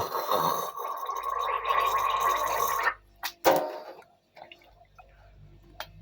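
A person gargling for about three seconds, then two short bursts of sound just after it stops.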